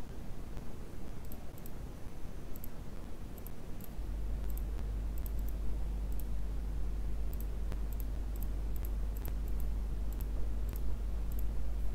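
Computer mouse clicking: a scattered series of short, sharp clicks, often in quick pairs. A steady low hum comes in about four seconds in.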